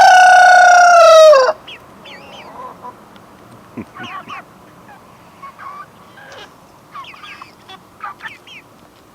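Rooster crowing once, a loud held call that drops off about a second and a half in. Scattered short chirps and peeps from the young chickens follow.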